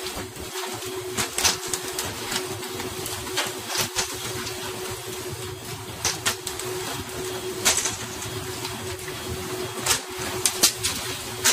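A fishing boat's engine hums steadily under rushing water, with irregular sharp slaps as pole-caught tuna land on the deck.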